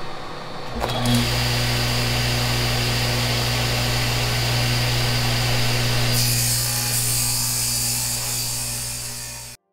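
Power saw running and cutting, with a steady low motor hum under a harsh cutting noise. The noise turns brighter and hissier about six seconds in, then stops abruptly just before the end.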